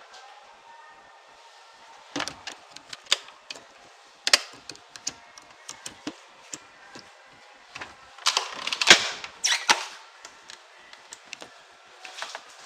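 A run of irregular sharp clicks and knocks, scattered at first and densest about eight to ten seconds in.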